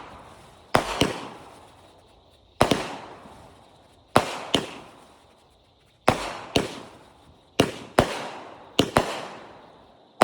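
Fireworks going off: a sharp bang every second or two, often two in quick succession, each trailing off into a fading echo.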